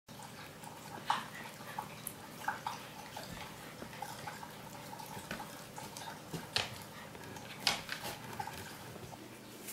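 Rough collie shuffling and turning on a sheet laid over a tiled floor: soft rustling with a few scattered clicks, strongest about a second in and again later on.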